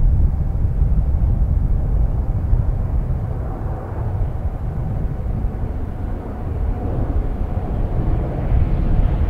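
Jet engines of a Boeing 787-10 climbing out after takeoff, heard from the ground as a steady deep rumble with a faint hum above it.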